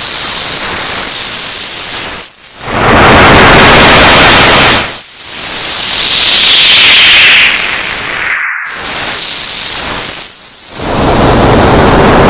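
Old-TV static sound effect: loud hissing white-noise static with high whistling tones sweeping up and down through it. It briefly drops out a few times.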